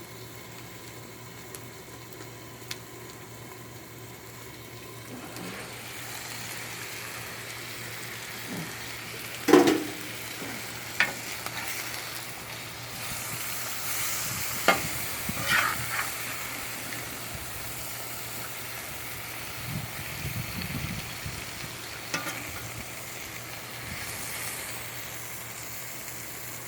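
Burger patties and sautéed vegetables sizzling on a gas griddle, a steady frying hiss under a low hum. A few sharp knocks and clicks cut in, the loudest about a third of the way through.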